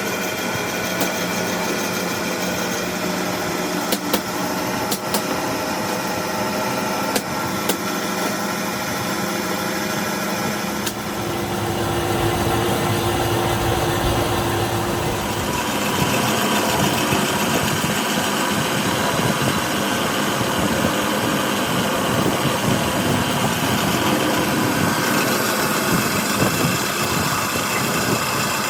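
A metalworking machine running steadily while a flywheel is faced, with a few sharp clicks in the first half. About twelve seconds in it gets louder and fuller, as if it has begun cutting, and it stays that way.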